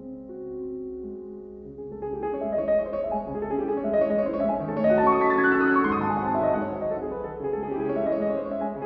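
Background piano music: held chords, growing fuller and louder about two seconds in, with a falling run of notes near the middle.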